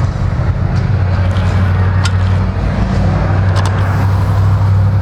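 A vehicle engine running steadily at idle, a low even hum, with a few light clicks over it.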